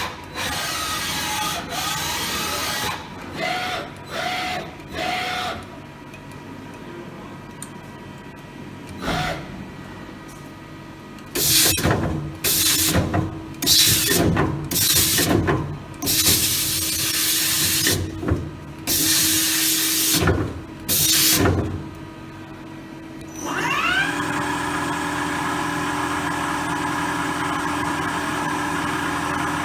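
Femco Durga 25 E CNC lathe running through a demonstration cycle. It starts with a few short whining moves, then gives a series of loud, hissing bursts about a second long, then runs up with a rising whine that holds steady and winds down near the end.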